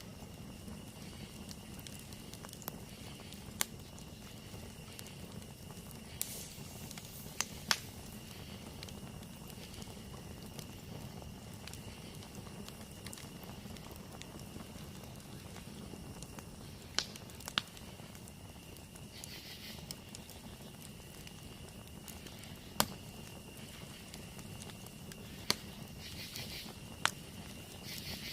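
Campfire burning with a low steady rush, broken by scattered sharp crackles and pops, a few close together. A faint steady high-pitched tone runs underneath.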